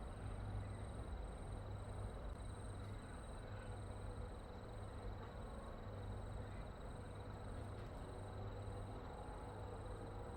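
Faint, steady outdoor background noise: a low hum with a thin high tone and a high, even pulsing about twice a second throughout.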